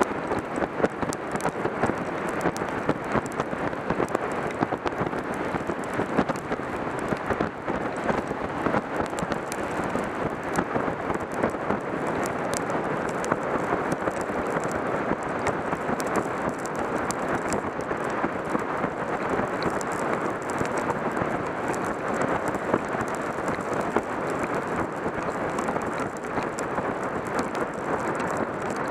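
Heavy rain falling steadily: a dense, even hiss with many sharp drop impacts throughout.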